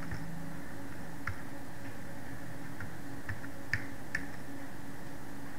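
Computer keyboard keys being typed, a few separate irregular clicks a fraction of a second to a second apart, over a steady low hum.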